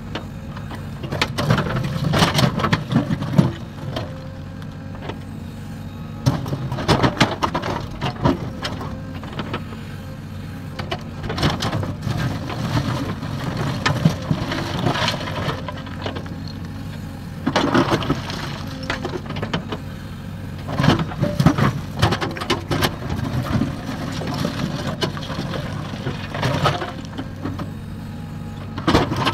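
JCB 3DX backhoe loader's diesel engine running steadily under hydraulic work, while its bucket digs and drops rocks. Rocks clatter and knock against each other and against the steel trolley bed again and again, about every three to four seconds.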